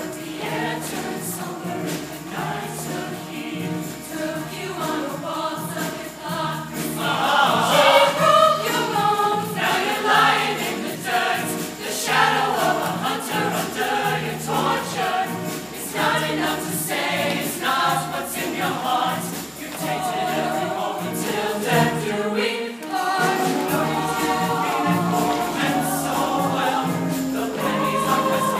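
Mixed-voice show choir singing in full chorus. The singing swells louder about a quarter of the way in and briefly drops away about four-fifths of the way through before resuming.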